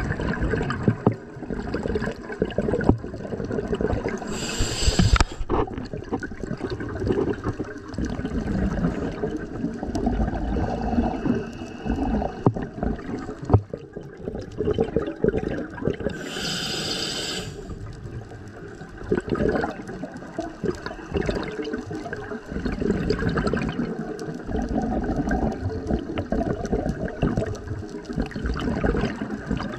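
A scuba diver breathing through a regulator underwater: two short hissing inhalations, about 4 and 16 seconds in, with long gurgling streams of exhaled bubbles between them.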